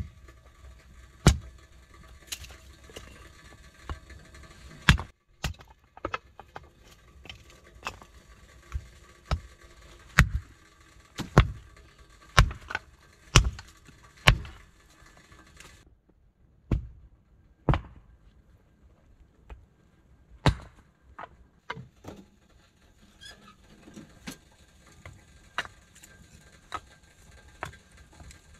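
Split firewood being handled and stacked: a series of sharp wooden knocks and clunks, irregular and roughly a second apart, as pieces are set down on one another, with a short lull past the middle.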